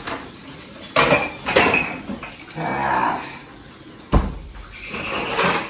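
Dishes and utensils clanking in a kitchen sink as they are washed by hand, with three sharp knocks and a running tap near the end. About halfway through, a low drawn-out call lasts under a second.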